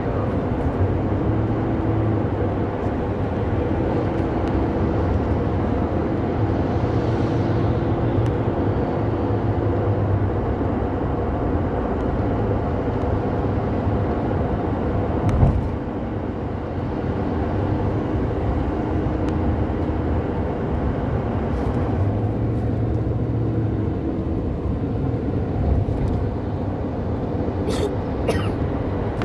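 Steady road noise inside a moving car: engine and tyre rumble at speed, with a single thump about halfway through.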